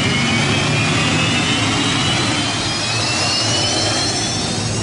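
Helicopter turbine engine in a hydroplane racing boat starting up: a steady rush of jet noise with several whining tones that slowly rise in pitch as it spools up.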